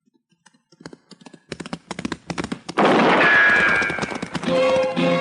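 Radio sound effects: a run of hoofbeats that grows louder and quicker, then gunfire with a falling ricochet whine about three seconds in, and theme music with plucked strings coming in near the end.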